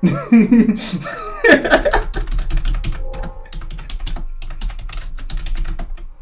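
A man laughing in bursts for about the first two seconds. Then comes a run of rapid, irregular clicks lasting several seconds.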